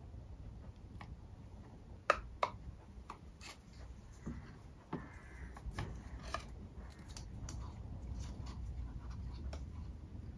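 Light clicks, ticks and scratches of a small pick tool working the old O-ring off a removed oil filter housing cap, with two sharper clicks about two seconds in.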